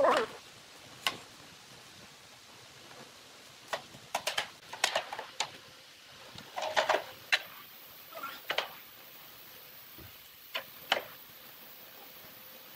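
Loose pine boards being set down and shifted onto the bottom rails of a wooden frame: irregular wooden knocks and clacks in small clusters, with a few scrapes.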